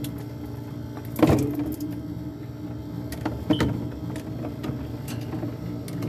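Plastic salad-dressing bottles and a clear plastic fridge tray knocking and rattling as they are moved around inside a refrigerator, the loudest knock about a second in and another a couple of seconds later, over a steady low hum.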